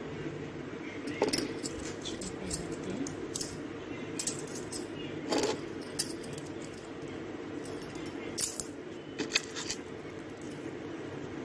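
Light clinks and sharp clicks of small hard objects being handled close by, irregular and scattered through, over a steady low background hum.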